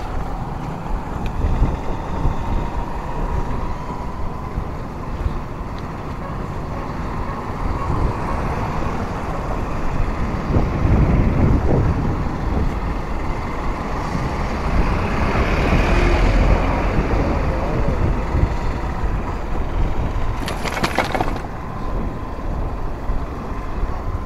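Wind and road noise from riding a bicycle along a highway, with motor traffic passing. A vehicle passes loudest about two-thirds of the way in, and a short hiss sounds shortly after.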